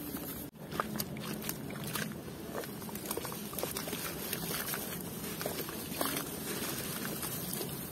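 Wet red dirt being squeezed and mashed by hand in a basin of muddy water: continuous squelching and sloshing, with many small splats and drips.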